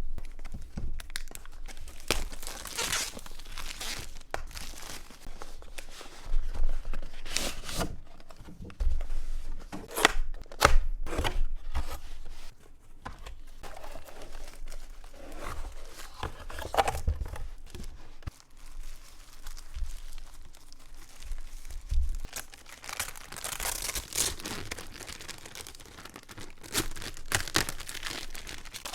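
Keyboard packaging being opened and unwrapped by hand: cardboard and plastic wrap tearing and crinkling, with irregular knocks and thuds as the box and its contents are handled.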